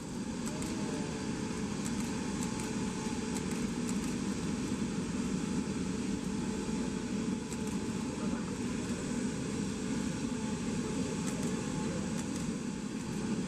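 Steady aircraft engine drone with faint steady whining tones held throughout.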